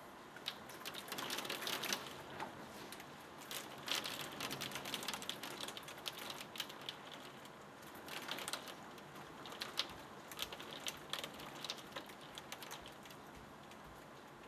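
Heavy storm rain hitting the window glass and sill in dense, irregular clicks over a steady wash of rain, swelling in surges with the gusts.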